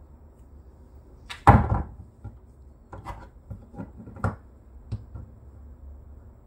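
A small plastic tree-stump figure knocked against and tapped on a tabletop: one loud knock about one and a half seconds in, then a string of lighter taps and clacks as it is set down and shuffled into place.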